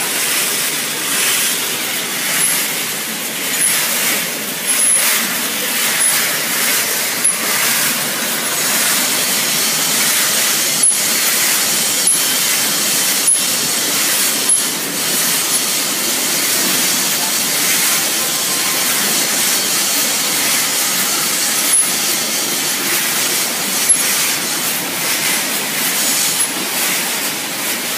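Dog food production line machinery running: a steady hiss with a faint high tick about once every second or so.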